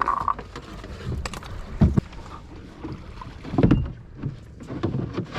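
Irregular knocks and thuds aboard a small fishing boat, the loudest about two seconds in and again near four seconds.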